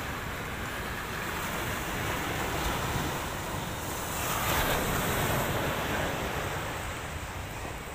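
Surf breaking on a beach: a steady wash of waves, swelling louder about halfway through as a wave comes in, with wind rumbling on the microphone.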